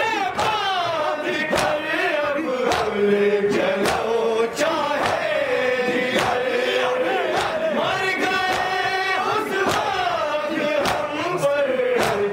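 Men chanting a Shia nauha, a Muharram lament, in unison through a microphone, the melody rising and falling in long sung phrases. Sharp slaps about once a second keep time, typical of matam chest-beating.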